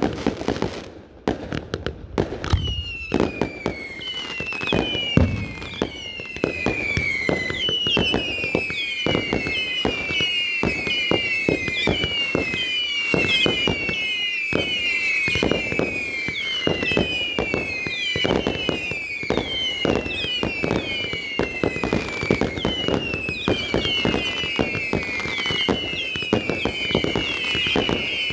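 Fireworks display: a dense barrage of bangs and crackles. From a couple of seconds in, there are many overlapping firework whistles, each falling in pitch, thickening toward the end.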